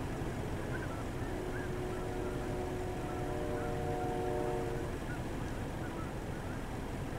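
Distant flock of snow geese calling, scattered faint honks throughout over a steady low rumble. From about a second in to about five seconds in, a steady pitched droning tone with several overtones sounds over them and then stops.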